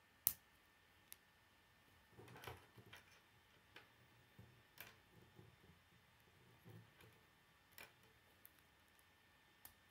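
Plastic K'nex connectors and rods clicking together as pieces are fitted onto a model: scattered sharp clicks, the loudest just after the start, with soft handling of the plastic parts in between.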